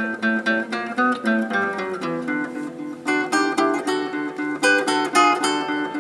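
Classical guitar played solo: a quick stream of plucked single notes over bass notes, dipping softer about two seconds in, then picking up into a steady, busier run.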